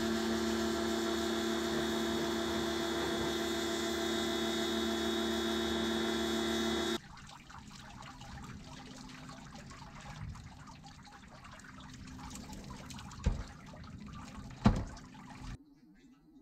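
Water running from a hose over a steady machine hum, typical of a pump. About seven seconds in the hum cuts out, leaving quieter trickling and splashing with two sharp knocks near the end before the sound stops abruptly.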